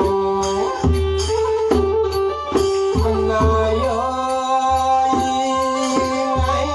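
Kantrum mahori ensemble playing: a bowed fiddle carries a sliding, held melody over regular low barrel-drum beats, with sharp high ticks keeping time.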